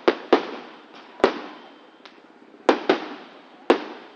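Aerial fireworks shells bursting overhead: about six sharp bangs at irregular intervals, two pairs in quick succession, each trailing off in a fading echo.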